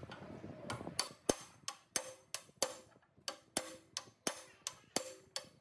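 Sharp metallic taps, about three a second, each with a short ring, starting about a second in after a faint scraping.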